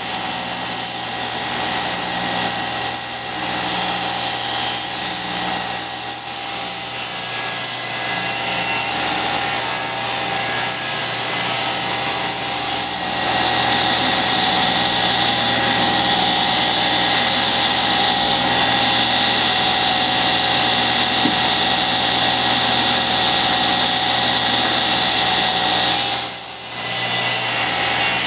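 Table saw running steadily, ripping a strip of wood from a board fed along the fence. About halfway through the cut ends and the blade spins free with a steadier whine, and near the end a new board goes into the blade.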